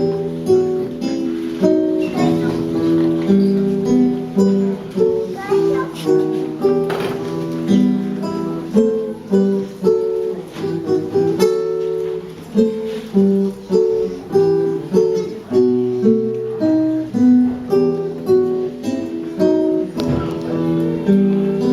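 Acoustic guitar being strummed and picked in a steady rhythm, playing an instrumental passage of chords.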